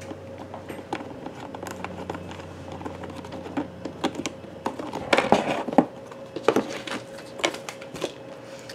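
Light clicks, taps and rattles of hard plastic kit parts being handled and turned over on a cardboard box, with a busier cluster of louder clicks about five seconds in. A faint steady hum runs underneath.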